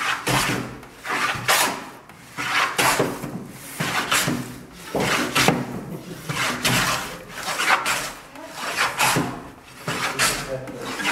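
Hand plane shaving a wooden board, stroke after stroke: a rasping swish about once every second and a bit, nine or so strokes in a steady rhythm.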